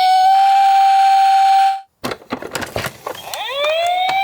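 Toy ambulance's electronic siren holding a steady wailing tone, which cuts off suddenly about two seconds in. A few clicks and knocks follow, then the siren starts again with a rising wail near the end.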